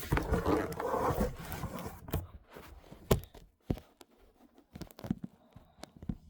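Plastic parts of a Dyson vacuum cleaner being handled and worked loose: a scraping, rustling noise for the first second or so, then scattered sharp clicks and knocks.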